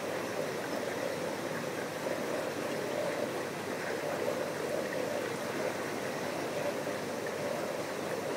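Steady rushing of water moving through a reef aquarium's circulation, with no distinct events.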